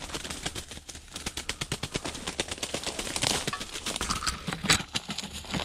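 Footsteps crunching through dry brush, twigs and dead branches, a quick irregular crackle of snapping sticks. A single louder sharp crack stands out about three-quarters of the way through.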